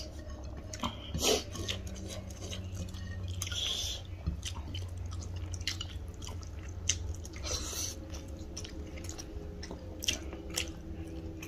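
Two people chewing mouthfuls of rice and chicken curry eaten by hand, close to the microphone, with short mouth clicks scattered irregularly. A low steady hum runs underneath.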